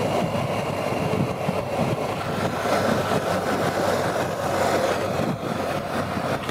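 BMW GS motorcycle's boxer-twin engine running steadily under way.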